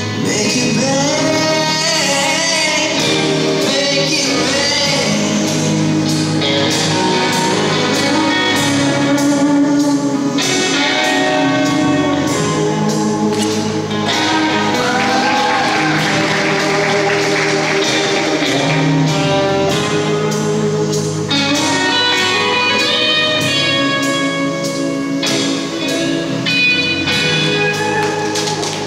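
Recorded song with a singing voice over instrumental backing, the skater's long-program music.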